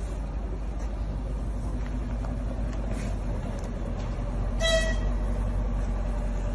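Steady low rumble of vehicle or traffic noise, with one short horn toot about four and a half seconds in.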